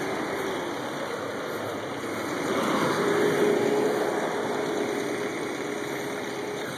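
A motor vehicle passing on the street: engine and tyre noise swell about three seconds in and then fade, with a steady engine hum held through the middle.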